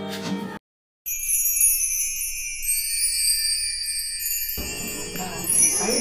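Music cuts off, and after a brief silence a bright, tinkling jingle-bell sting starts in the added background music. Voices and room noise come in beneath it about two-thirds of the way through.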